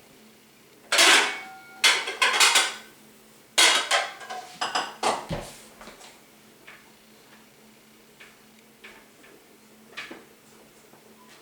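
Pots, lids and dishes clattering, with several knocks and a brief metallic ring in three clusters over the first five seconds, then a few light taps.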